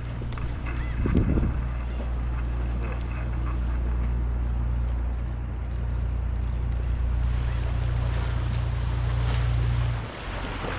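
Strong wind buffeting the microphone, a steady low rumble with a brief louder gust about a second in, dropping away suddenly near the end.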